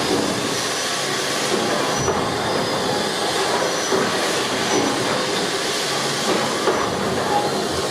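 Fowler K7 steam ploughing engine working in steam: a steady mechanical clatter with hissing steam.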